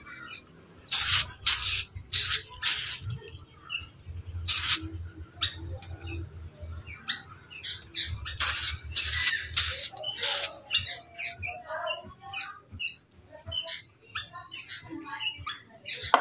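Aerosol spray-paint can hissing in short bursts through about the first ten seconds as paint is sprayed onto plastic car trim, with birds chirping in the later part.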